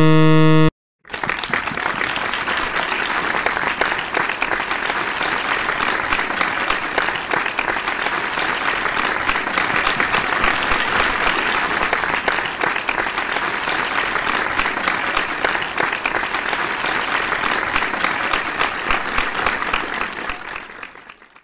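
A brief loud buzzer-like tone, then applause that runs on and fades out near the end.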